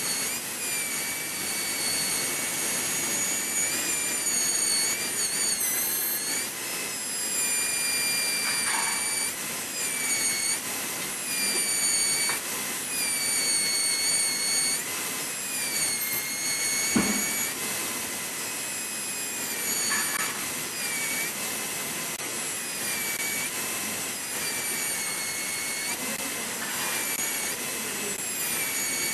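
High-speed air-turbine dental handpiece with a diamond bur cutting a model tooth: a steady high whine over a hiss, its pitch dipping again and again as the bur bites into the tooth and coming back up as it is eased off. A single short thump about seventeen seconds in.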